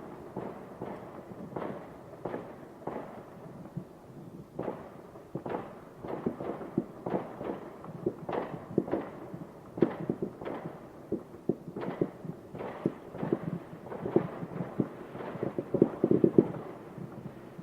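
Many distant fireworks going off: irregular, overlapping bangs and pops, dull and muffled with little high end. They come thicker after about eight seconds, with the loudest flurry near the end.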